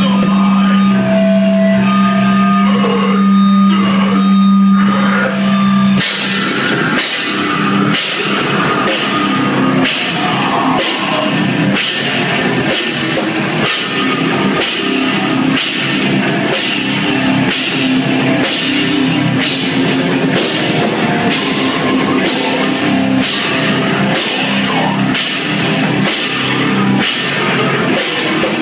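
Hardcore metal band playing live: distorted guitar holds a low chord with a few picked notes over it. About six seconds in, the drums and full band come in with a slow, heavy beat, about three cymbal-and-snare hits every two seconds.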